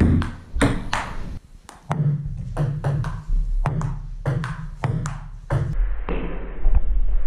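Table tennis ball clicking sharply on paddles and table in a rally, several hits a second, over background music.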